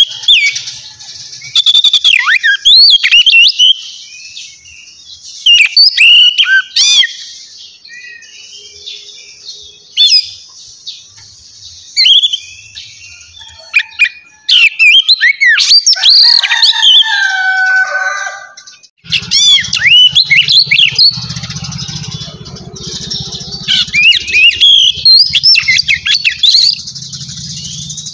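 Small birds chirping and twittering rapidly and loudly, with a run of falling whistled notes past the middle. A low steady hum joins about two-thirds of the way through.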